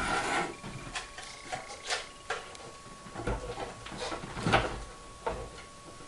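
Handling noise from a laser-cut plywood hurdy-gurdy being lifted and set down: scattered wooden knocks and rubbing, the loudest knock about four and a half seconds in.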